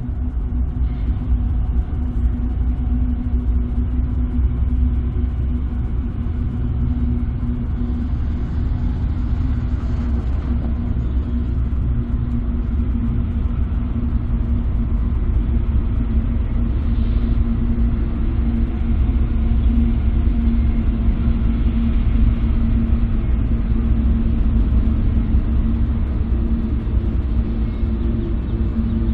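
Diesel-electric freight locomotives approaching slowly, their engines running with a steady, loud low rumble and hum that builds slightly as they draw closer.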